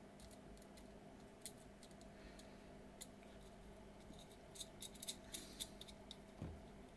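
Faint small metallic clicks of a hex nut being threaded by hand onto a panel-mount audio jack on a metal Eurorack panel: a few scattered clicks, then a quick run of them about two-thirds of the way in, over a steady faint hum.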